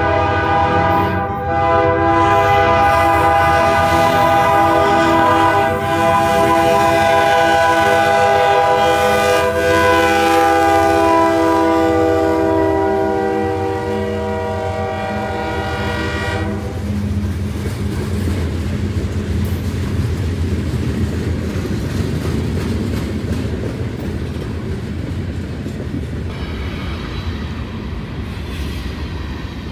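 GE AC4400CW diesel locomotive's air horn sounding in long blasts as the train approaches and passes, with brief breaks about a second in and near six seconds. The horn stops after about 17 seconds, and then freight cars roll by with a steady rumble and clickety-clack of the wheels on the rail joints.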